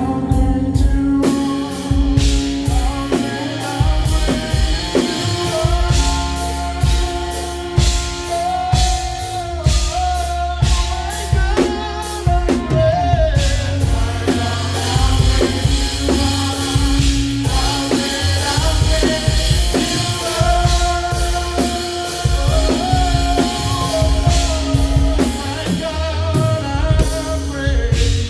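A live praise band playing a slow gospel song: a drum kit keeps a steady beat under bass and instruments while voices sing the melody.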